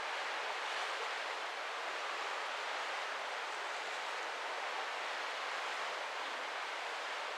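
Steady, even rush of sea water and wind heard from a cruise ship under way at sea.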